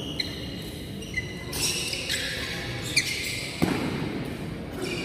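Badminton rally: sports shoes squeaking on the court floor, with a few sharp racket strikes on the shuttlecock, the loudest two about half a second apart in the second half.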